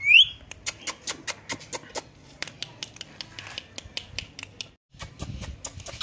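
An Indian ringneck parrot's whistled note rises sharply and breaks off at the very start. A long run of quick, sharp, irregular clicks follows, several a second, and drops out briefly just before five seconds in.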